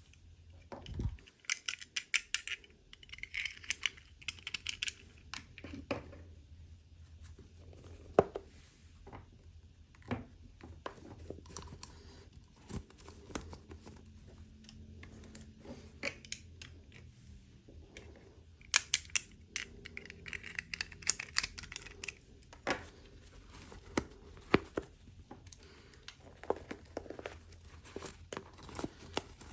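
Toy packaging being unboxed by hand: plastic wrapping crinkling and tearing in two spells, near the start and about two-thirds of the way through, with scattered sharp clicks and taps of small plastic parts throughout.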